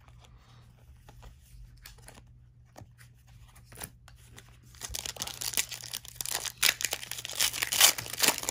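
Plastic wrapper of a Panini Prizm football card pack being torn open and crinkled, starting about five seconds in after a few faint handling clicks, loudest near the end.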